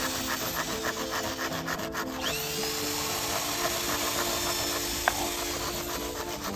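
Tools working bamboo: about two seconds of quick, rhythmic rasping strokes, then a steadier grinding, sawing noise with one sharp click about five seconds in. Background music with held notes plays underneath.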